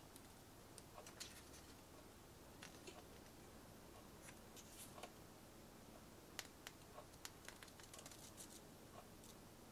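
Faint rustling and light flicks of paper as a small instruction booklet is opened and its pages are turned, with scattered soft clicks.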